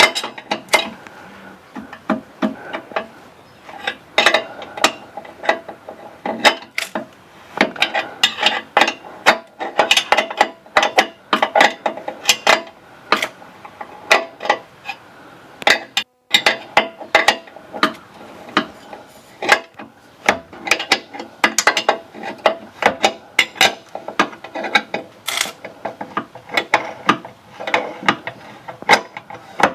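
Hand ratchet wrench clicking in quick runs of strokes on the running board's mounting bolts, loosening them so the board can be moved and reset.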